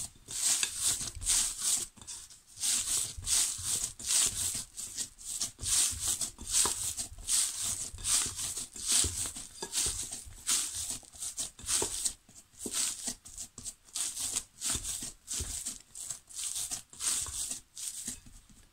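Hands kneading and punching down risen brioche dough in a glass bowl, knocking the air out after its rise: a steady run of short pressing strokes, about two a second.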